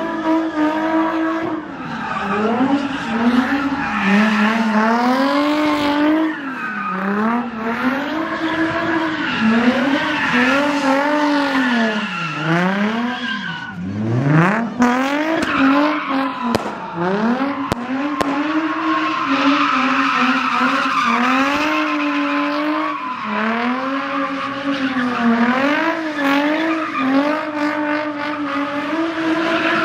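Car drifting: the engine is held high in its revs, rising and falling over and over, while the rear tyres squeal. About halfway through the revs drop sharply and climb straight back, and near the end they fall away.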